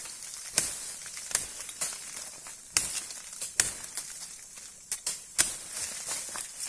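Forest palm shoot stalks (umbut) being broken and cut by hand: a series of sharp, irregular cracks and snaps over a dry rustle.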